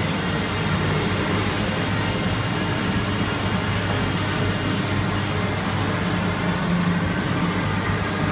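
Tornos Deco 2000/10 CNC sliding head lathe running through its machining cycle, a steady low hum under a high whine from the machine. The whine stops suddenly about five seconds in while the hum carries on.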